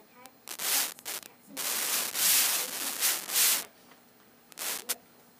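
Rubbing, rustling noise in three bursts: a short one, then a longer one lasting about two seconds, then a short one near the end. It is louder than the talk around it.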